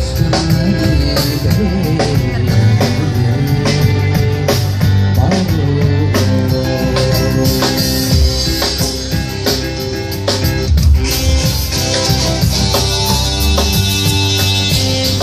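Live band playing an instrumental passage with no singing: electric guitar over a drum kit.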